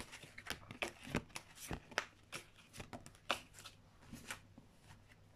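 Tarot cards being shuffled by hand: a run of quick, irregular card flicks and slaps that stops shortly before the end.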